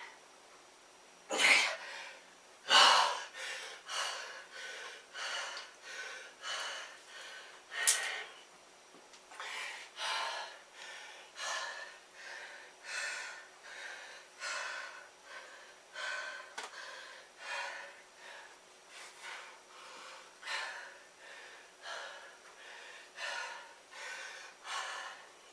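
A man panting hard after a set of push-ups, with a few loud gasping breaths at the start, then quick, even breaths at about one and a half a second.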